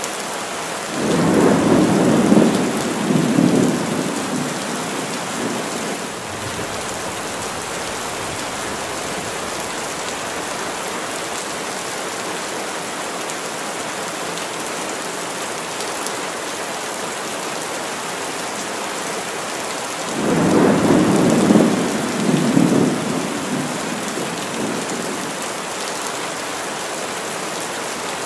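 Heavy rain falling steadily through the trees, with two rolls of thunder. One starts about a second in and another about twenty seconds in; each rumbles in two swells over some four seconds before fading back into the rain.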